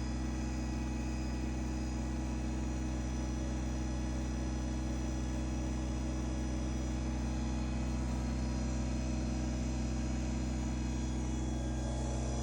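Kubota BX24 compact tractor's three-cylinder diesel engine running steadily at an even speed.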